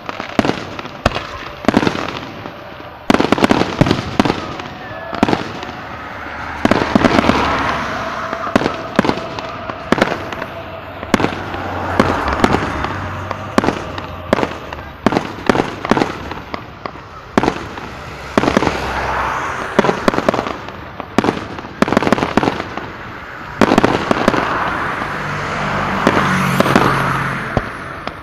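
Fireworks display: aerial shells bursting in a rapid, irregular barrage of sharp bangs, with swells of noise rising and falling between the bangs.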